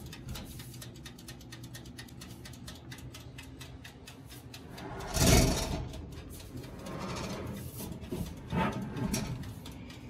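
Handling noise: a hand rubbing and sliding over the sheet-metal casing of a toaster oven, with a loud brushing swish about halfway through and two softer ones near the end.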